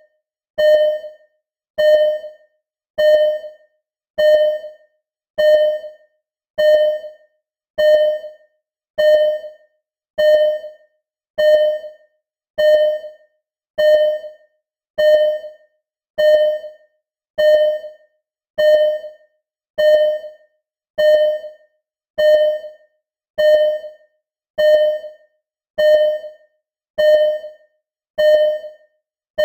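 Simulated ECG heart monitor beeping: a short, quickly fading electronic tone repeating steadily about once every 1.2 seconds, each beep marking a heartbeat at a slow, regular rate of about 50 a minute.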